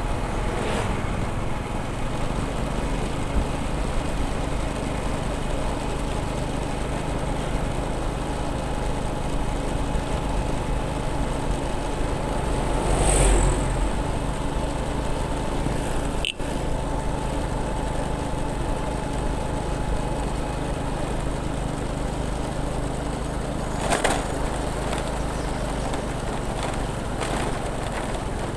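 Motorbike engine running steadily while riding along, with road and wind noise. A brief louder rush about thirteen seconds in, and shorter ones near the start and about twenty-four seconds in.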